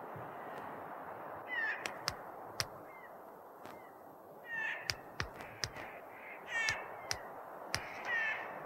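Clark's nutcracker picking at a whitebark pine cone: sharp taps of its bill on the cone, and about four short, harsh calls that fall in pitch, over a steady background hiss.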